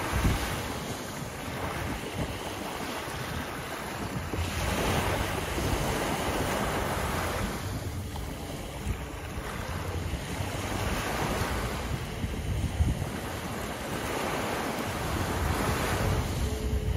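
Small sea waves breaking and washing up a sandy beach, a swell of surf every few seconds that rises and eases. Wind rumbles on the microphone underneath.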